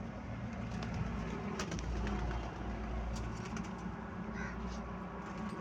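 Pigeons cooing, with a few sharp clicks scattered through and a short higher chirp about four seconds in.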